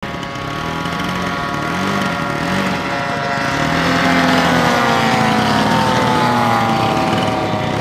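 Radio-controlled model airplane engines buzzing as the planes fly a low pass, the engine pitch sliding steadily down over the last few seconds as they go by, with a second, lower engine tone wavering underneath.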